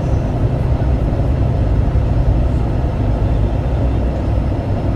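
Steady low rumble of a vehicle driving along, engine and road noise heard from inside the vehicle.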